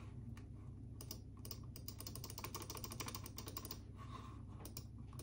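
Typing on a computer keyboard: quick runs of key clicks starting about a second in, a short pause near the four-second mark, then a few more keystrokes, over a steady low hum.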